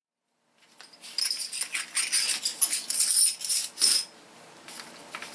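Metal washers used as pattern weights clinking and ringing against each other as they are gathered up and dropped into a small box: a quick run of sharp metallic clinks that stops about four seconds in, followed by faint rustling.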